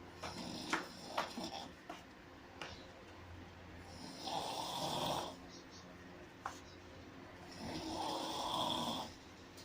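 Snoring from a sleeping person: two long snores in the second half, about three and a half seconds apart, each lasting about a second. A few sharp clicks come in the first two seconds.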